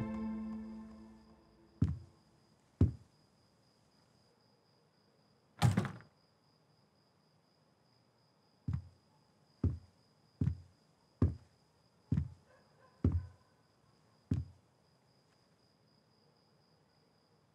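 Background music fading out, then a couple of soft knocks and a door shutting with a thud about six seconds in. After that come about eight footsteps on a carpeted floor, a little more than one a second, before it goes quiet.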